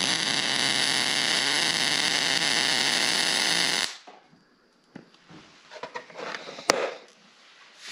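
MIG welding arc from an ESAB Rebel 205ic, running steadily for about four seconds on 1/8-inch material at 18.5 volts and 290 inches per minute of wire, then cutting off. A few sharp clicks follow.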